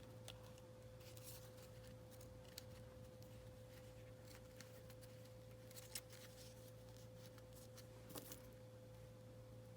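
Near silence: faint scattered clicks and rustles of paper being handled and lined up, over a steady low electrical hum.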